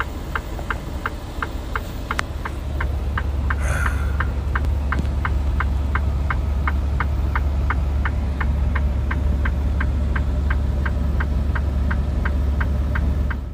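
Turn-signal or hazard flasher in a truck cab ticking steadily, about three ticks a second, over the low steady rumble of the truck's engine.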